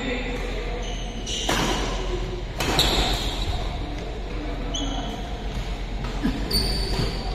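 Badminton rally: two sharp racket strikes on the shuttlecock about a second apart, followed by brief squeaks of shoes on the court floor.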